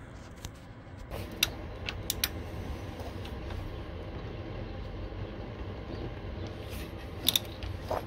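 Hand tools clicking and clinking on the crankshaft pulley bolt as it is undone with a spanner and socket bar, a handful of sharp metallic clicks bunched together, then another near the end, over a steady low hum.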